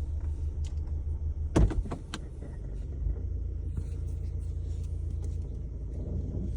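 Low vibrating rumble in a 2022 Volkswagen Tiguan SE R-Line, the vibration noise the owner links to the start-stop system being active. It pulses for the first second and a half, then comes a sharp knock and a couple of lighter clicks, and the rumble then runs on more evenly.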